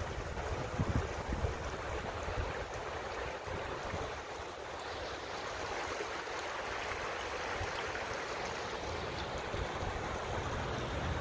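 Shallow river water flowing and rippling along the bank, a steady soft wash, with wind buffeting the microphone in the first second and again near the end.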